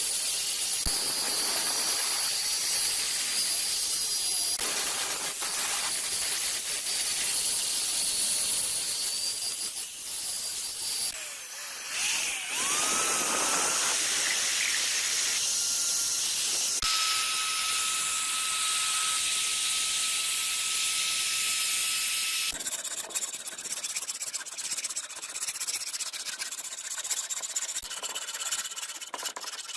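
Abrasive hand-scrubbing of a rusty steel axe head, a steady hissing scrape with a thin high squeal in it, changing abruptly several times.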